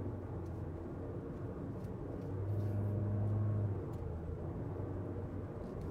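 Steady engine hum and road rumble of a moving car, heard from inside the cabin; it grows a little louder for about a second and a half in the middle.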